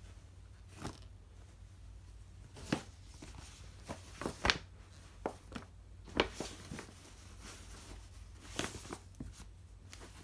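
Cut-up cotton bedsheet rags rustling and brushing as they are gathered by hand and pushed into a paper bag, in about a dozen short, irregular rustles.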